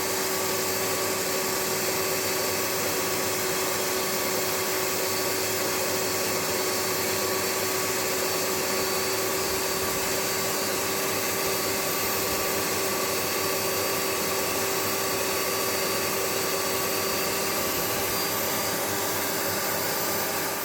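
Bench sander running steadily, a constant motor whine with a hiss, as the edges of a steel and acrylic lock pick are bevelled on coarse grit. It cuts off abruptly near the end.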